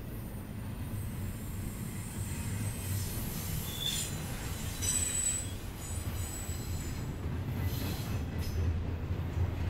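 Double-stack intermodal freight train rolling past: a steady low rumble of steel wheels on rail, with brief high-pitched wheel squeals about four and five seconds in and again near the end.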